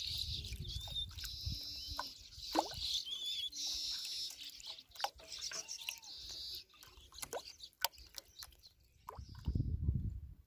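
Water splashing and dripping around a plastic bottle trap bobbing in a pond, heard as many small sharp drips and clicks over a steady high hiss, with a few short bird calls. The hiss stops after about six seconds, and a low rumble comes in near the end.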